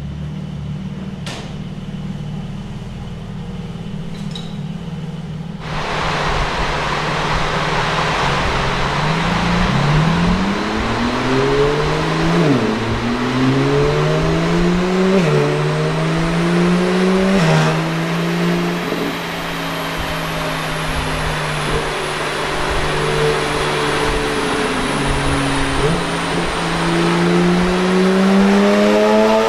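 2020 Porsche 718 Spyder's 4.0-litre naturally aspirated flat-six, breathing through a Tubi Style catback exhaust, running on a chassis dyno. It runs steadily at first, and a rushing noise joins about six seconds in. The revs then climb and drop sharply three times as it goes up through the low gears, hold steady for a few seconds, and near the end rise again in a long pull in third gear.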